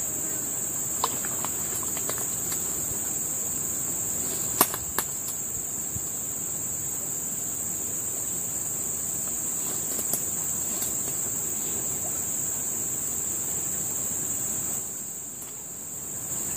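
Steady high-pitched chorus of insects, with a few sharp clicks, the loudest about four and a half seconds in; the chorus fades a little just before the end.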